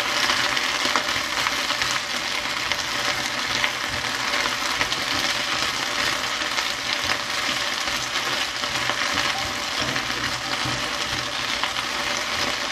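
Mustard green stems sizzling steadily in hot oil in a wok as they are stir-fried and turned with tongs, with scattered light clicks and scrapes of the tongs against the pan.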